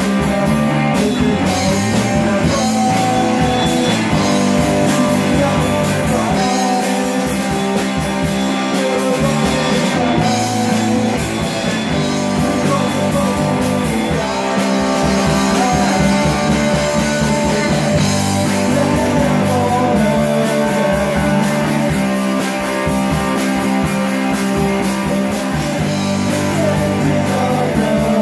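Rock band playing live and loud: electric guitar, bass guitar and drums.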